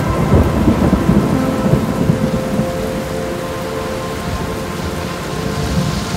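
Thunderstorm: steady rain with a low rolling thunder rumble, loudest in the first two seconds and then easing off. Faint held tones sit under the rain.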